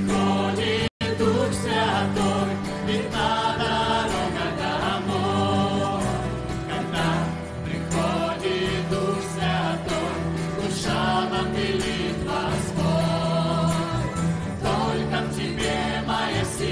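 Christian worship song sung by a mixed choir and lead vocalists over a band with bass guitar. The sound cuts out completely for a split second about a second in.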